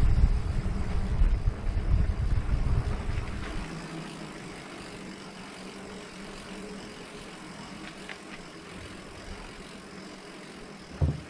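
Wind rumbling on the microphone during the ride, dying away after about three and a half seconds. A quieter, steady low hum is left underneath.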